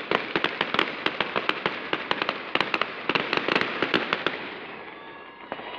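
Aerial fireworks salute crackling overhead: a rapid volley of sharp cracks, several a second, that dies away about four seconds in.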